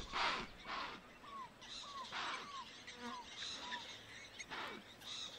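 A bird calling: about five short chirps, each rising then falling, spread over a few seconds, over faint hiss and soft rustling swishes.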